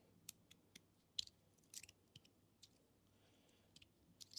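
Faint, irregular clicks of a magnetic fidget slider's plates being slid and snapping together, about a dozen times.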